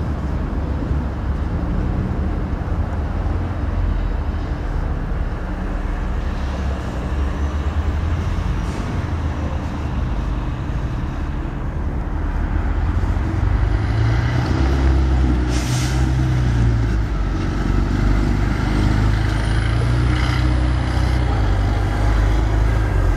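Low, steady rumble of a heavy diesel engine running close by, growing louder a little past the middle, with one short hiss around then.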